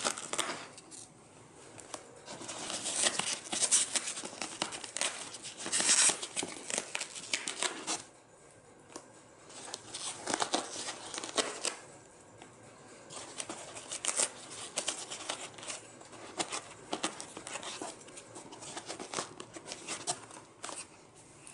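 Foam insert of a hard-shell case being torn and peeled out by hand, making irregular rubbing and tearing noises in bursts, with a couple of short quieter pauses.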